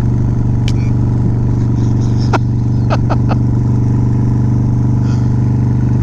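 Harley-Davidson V-twin motorcycle engine running steadily while under way. A few short, sharp clicks come about two and a half and three seconds in.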